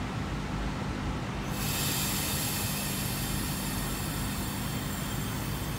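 NSW TrainLink V set double-deck electric intercity train pulling away from the platform: a steady low hum, joined about a second and a half in by a hiss that carries on as the train moves off.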